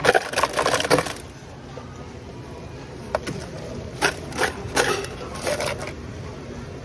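Ice cubes clattering out of a soda fountain's ice dispenser into a paper cup for about a second at the start, followed a few seconds later by several scattered clatters and knocks.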